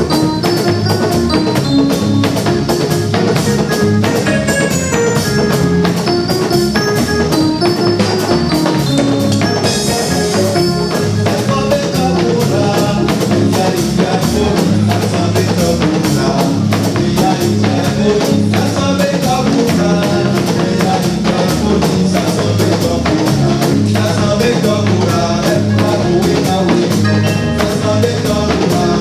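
Band music with a drum kit keeping a steady, fast beat under melodic instruments.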